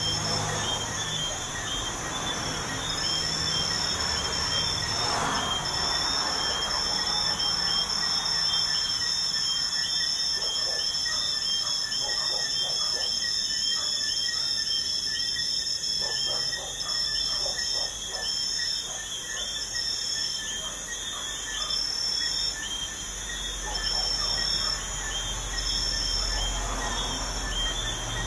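Crickets trilling steadily at night, a high continuous trill with a lower layer of quick repeated chirps, over the wash of traffic on a nearby highway. A low vehicle rumble builds near the end.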